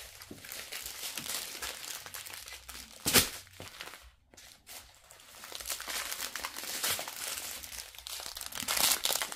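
Small plastic bags of diamond-painting drills crinkling and rustling as they are handled, with a louder rustle about three seconds in and a brief lull just after.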